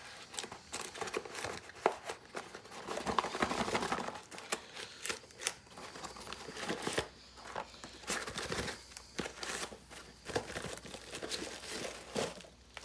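Paper and plastic packaging being unwrapped and torn open by hand: a run of crinkling, rustling and tearing, broken by small sharp ticks.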